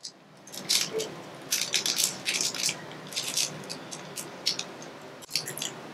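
Snack wrapper crinkling and rustling in quick, irregular crackles as a caramel-filled waffle cookie is pulled from it and handled.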